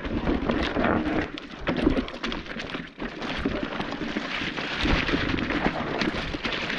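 Electric mountain bike riding over rough, rocky trail: tyres rumbling over rock and roots, with rapid knocks and rattles from the bike and wind noise on the microphone.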